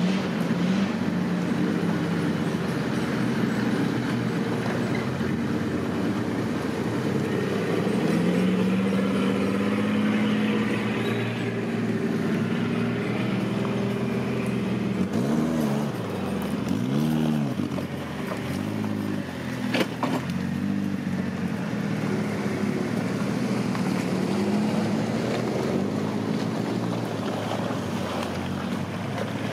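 Off-road 4x4 engine running and being revved, its pitch rising and falling repeatedly with a couple of quick sharp revs past the middle. A single sharp knock sounds about two-thirds of the way through.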